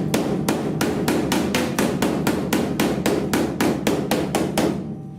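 Body hammer tapping the sheet steel of a welded-in roof patch panel, in an even run of sharp metallic blows about three to four a second that stops shortly before the end. The hammering works out the puckered, sunken area around the welds.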